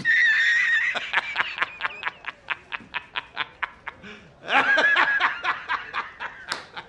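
A man laughing hard in a high-pitched cackle: a drawn-out opening note breaking into rapid "ha-ha-ha" pulses, about four or five a second, that fade. About four and a half seconds in, the laugh starts up loud again.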